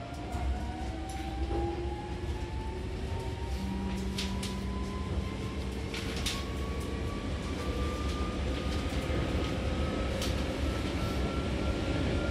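Hankyu Takarazuka Line electric train heard from inside the car while running: a low rumble of wheels on track under the whine of its traction motors, which rises slowly in pitch as the train picks up speed. A few short clicks stand out over it.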